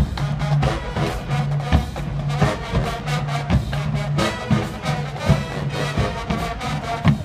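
High school marching band playing brass and drums: a repeating figure of short held low brass notes over a steady drum beat.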